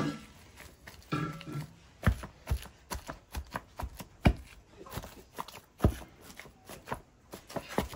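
Knife chopping on a cutting board in irregular knocks, about two or three a second, with a short snatch of a voice about a second in.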